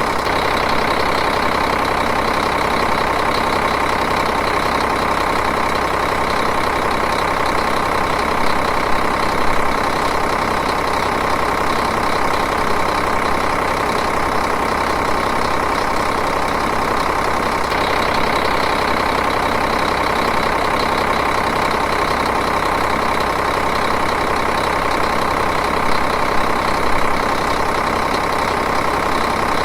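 Diesel engine idling steadily at an even, unchanging speed.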